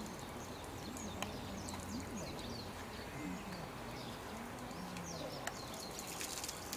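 Open-air ambience: small birds chirping, with faint voices rising and falling in the background and a couple of sharp clicks.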